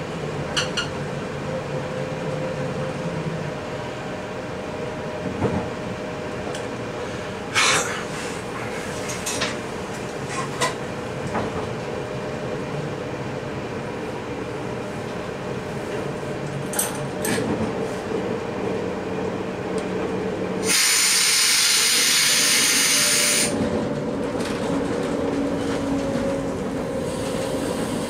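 Passenger train running along the track, heard from the driver's cab: a steady rumble and hum with scattered sharp clicks from the wheels on the rails. About two-thirds of the way through, a loud hiss lasts about three seconds.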